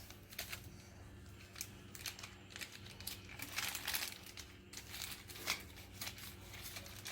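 Packaging crinkling and rustling as it is torn open by hand, in irregular bursts with a few louder crinkles in the middle.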